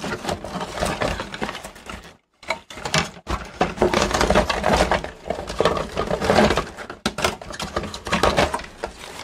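Hands handling the circuit boards and wiring harnesses of a Mitsubishi HS-700 portable VCR as it is taken apart: dense clicking, rattling and rustling of boards, wires and plastic connectors. A brief silent gap comes about two seconds in.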